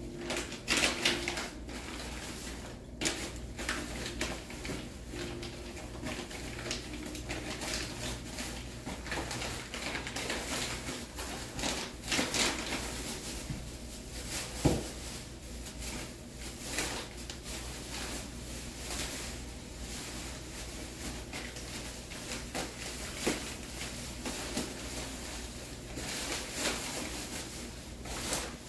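Irregular rustling, clicks and knocks of someone moving about and handling things, with a few louder knocks, one about a second in and a sharp one about halfway through.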